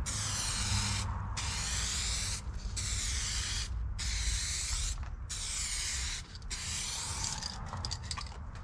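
Aerosol spray can hissing in a series of short passes, about six bursts of roughly a second each with brief pauses between, as a coat of two-part clear coating is sprayed onto a plastic headlight lens. The spraying stops about seven seconds in.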